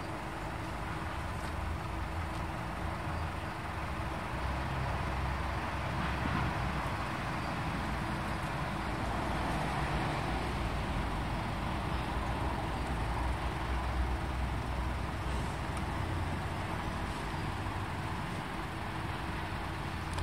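Steady low rumble of background road traffic, with a faint constant hum.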